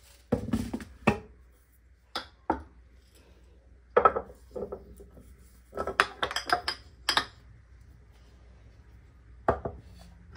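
Glass storage jars being set down on a shelf and nudged into a row: scattered clinks and knocks of glass on glass and on the shelf, coming in short clusters.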